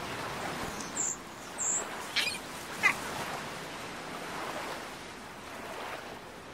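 Steady rushing noise, like surf, with four short high bird-like chirps in the first three seconds.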